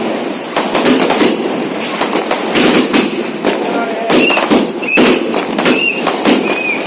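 Multi-shot aerial firework cake (a 240-shot 'air cracker' battery) firing in rapid succession: a string of sharp bangs, about two to three a second, with short faint whistles among them in the second half.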